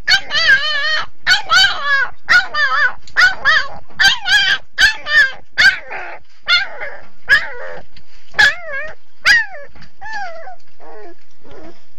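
Puppy crying for its mother in a run of short, high-pitched yelps and whines that waver in pitch, about two a second, growing fainter and sparser near the end.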